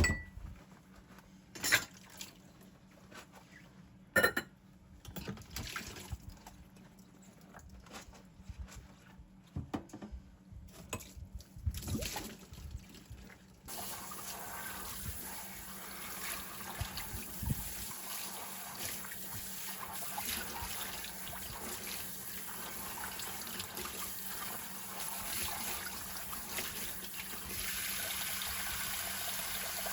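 Water running steadily, coming on suddenly about halfway through and running louder near the end, after a few sharp knocks and clinks.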